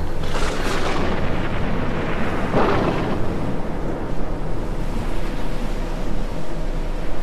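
Film sound design: a deep, steady rumble with two rushing swells, one about half a second in and another near three seconds in.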